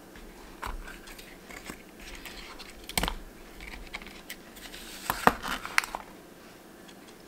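Handling noises as an old cardboard box is opened and a metal adjustable mainspring winder is taken out and handled: scattered clicks and knocks, loudest in a cluster about five seconds in.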